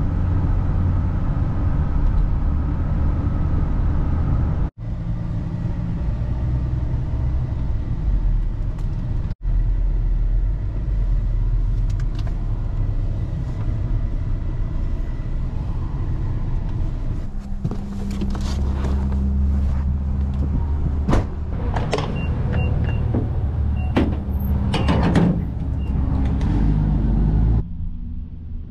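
Cabin noise of a Ford on the move: a steady low engine and road rumble. In the second half comes a run of clicks and knocks with a few short high beeps.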